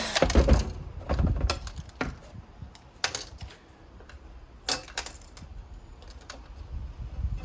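Scattered light clicks and taps of small screws and a screwdriver being handled, with a few sharp ticks spaced a second or two apart.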